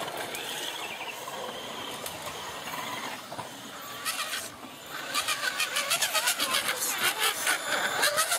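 Motor and drivetrain of a radio-controlled scale crawler truck whining as it crawls, with a fast rattling clatter from about five seconds in as it comes over the camera.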